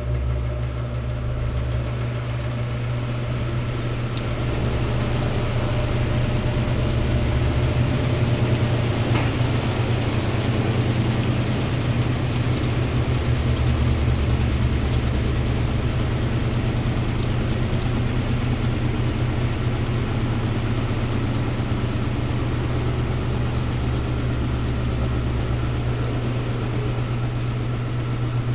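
Electrolux LT13B 13 kg washing machine running: a steady motor hum over a churning wash, with a low throb that swells and fades every few seconds.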